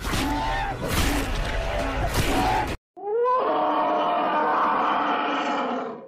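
Made-up woolly mammoth sound effects: a harsh roar with sharp cracks through it, cut off suddenly about three seconds in. After a brief gap comes a long pitched call that opens with a rising glide and then holds steady.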